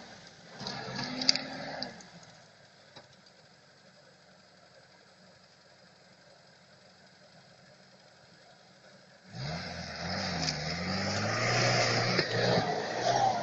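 UAZ-469 engine running after a repair, coming in suddenly about nine seconds in after several quiet seconds and revving, its pitch rising and falling. A shorter engine sound is heard briefly near the start.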